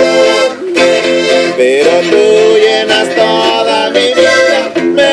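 Live norteño music: a button accordion plays a melodic run over a strummed twelve-string bajo guitar, with short breaks between phrases about half a second in and near the end.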